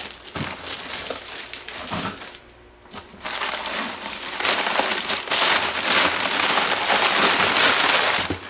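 Plastic bag and white packing paper crinkling and crumpling as they are pulled out of a cardboard box. The rustle is lighter at first and drops briefly near three seconds in, then runs loud and dense until near the end.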